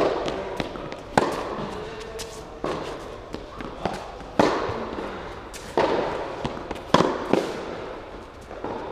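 Tennis rally: rackets striking the ball and the ball bouncing on the court, a sharp pop about every second, each one echoing in the hall.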